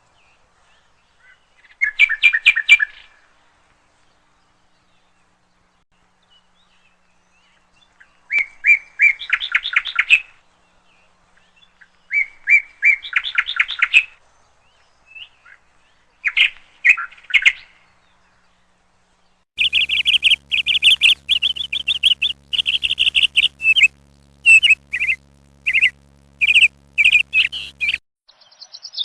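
A bird calling in short bouts of rapid, rattling notes with silent gaps between them, then a longer, denser run of calls in the last third over a faint low hum.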